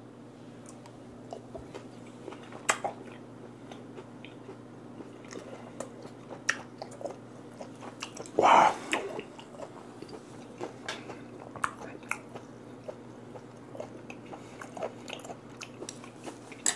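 Close-up mouth sounds of chewing vinegar-cured mackerel sashimi (shime saba) with wasabi: soft wet clicks and smacks. A loud breathy exhale comes about halfway through, as the wasabi's heat hits.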